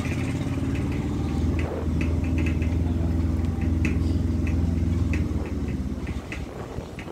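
A vehicle's engine running steadily as it drives along, a low even hum that eases off and gets quieter near the end.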